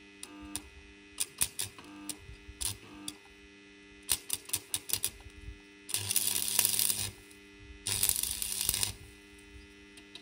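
Stick-electrode arc welder: the electrode is scratched and tapped against rusty steel with sharp crackling clicks while the arc won't catch. It then strikes and sputters twice, about a second each time, over a steady hum. The rust keeps the arc from striking.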